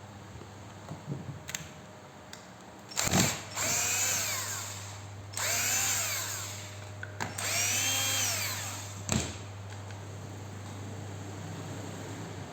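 RYU RRH26 rotary hammer's motor switched on in three short runs of a couple of seconds each, the pitch rising as it spins up and falling as it winds down each time.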